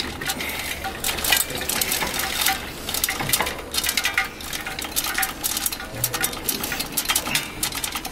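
Irregular light clicking and clinking of cables and plastic connectors rattling against the inside of an e-bike's metal frame as the wire harness is jiggled and fed down through it.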